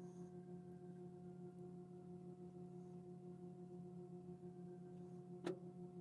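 A faint steady hum, with one sharp click near the end.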